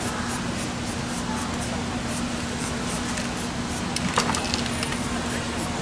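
Steady street background noise with a constant low hum. About four seconds in, a short crackle of stiff paper as a paper mask is lifted off a spray-painted picture.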